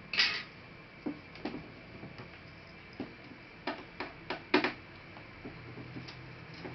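Sharp clicks and light knocks of plastic laptop parts being handled and worked apart, scattered and irregular, the loudest just after the start and about four and a half seconds in.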